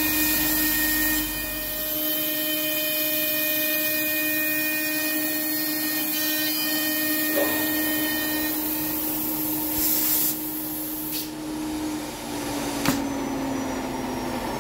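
A home-built PrintNC CNC router's spindle runs steadily, with a whine and a high hiss, while its 6 mm cutter takes a light 0.2 mm finishing pass in plywood. Near the end the whine drops in pitch as the pass finishes, and a single sharp click is heard.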